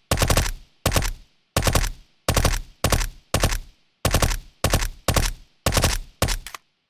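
Suppressed HK MP5 SD submachine gun firing about a dozen short bursts of automatic fire in quick succession, each burst about half a second long, with brief pauses between them.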